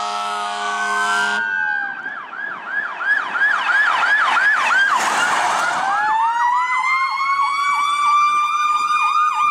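Emergency vehicle sirens. A fire engine's air horn blares over a wailing siren and cuts off about a second and a half in. Then a fast yelp siren sweeps up and down about three times a second, and from about six seconds a slow wail and a second yelping siren sound together.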